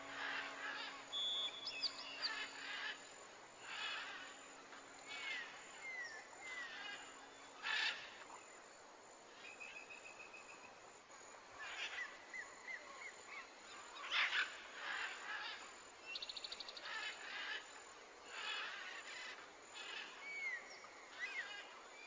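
Wild birds chirping and calling: short whistled notes that slide down in pitch, a quick trill, and harsher scratchy calls every few seconds.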